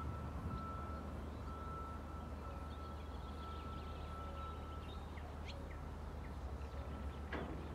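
Birds chirping a few times over a steady low rumble, with a thin high tone that holds with short breaks. A short sharp sound comes near the end.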